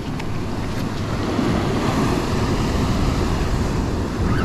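Ocean swell surging and washing against a rock ledge, with wind buffeting the microphone.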